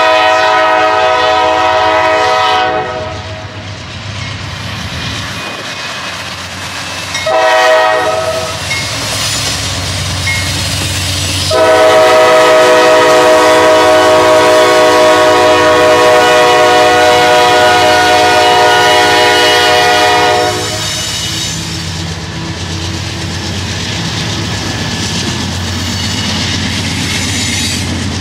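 GE Dash 9 diesel locomotive's multi-note air horn sounding for a grade crossing: a long blast, a short one about seven seconds in, then a long blast held about nine seconds. Underneath, the locomotive's diesel engine working hard as the train accelerates, and in the last part the freight cars rolling by with wheel clatter.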